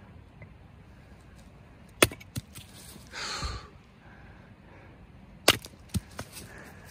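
A small hatchet chopping dry wood into kindling on a chopping block: a sharp chop about two seconds in and another about three and a half seconds later, each followed by a lighter knock.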